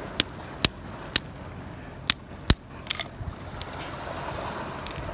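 Sharp clicks and small cracks, about eight at uneven spacing, from snail shells being handled and broken open by hand on rock. A steady hiss of wind and sea runs beneath them.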